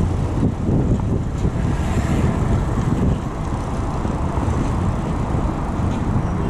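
Steady low rush of wind over a chest-mounted action camera's microphone while cycling on a mountain bike, with road noise beneath it.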